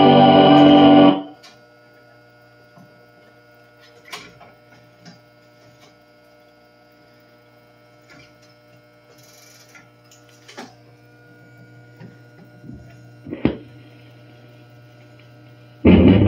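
Wurlitzer 1015 jukebox changing records. The music cuts off about a second in, leaving a steady amplifier hum, and the changer mechanism makes scattered clicks and clunks as it puts the played 78 back in the magazine and lifts the next one onto the turntable, the loudest clunk a couple of seconds before the end. The next record's music starts right at the end.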